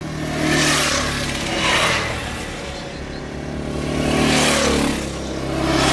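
Several dirt bikes riding past on the road one after another, their engines swelling and fading in about four passes.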